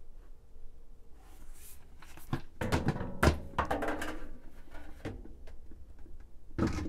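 A new washing-machine agitator knocking and thunking as it is handled and lowered into the washer tub: a run of irregular knocks, the loudest about three seconds in.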